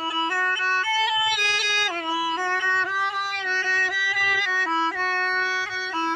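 Snake charmer's been (pungi), a gourd-bodied reed pipe, playing a melody over its steady drone note, the tune stepping between notes with small bends.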